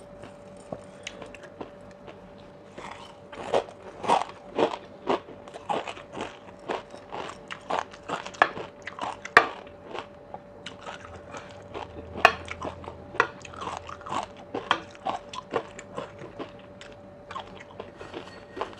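Close-miked chewing of a mouthful of spicy oyster salad topped with crispy fried shallots: many short, crisp crunches and wet chewing, starting about three seconds in and going on almost to the end.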